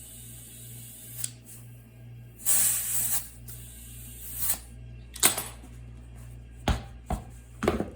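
Compressed air hissing into a small tubeless tire through an inflator chuck, in bursts, then four sharp pops over the last three seconds as the greased beads seat on the rim.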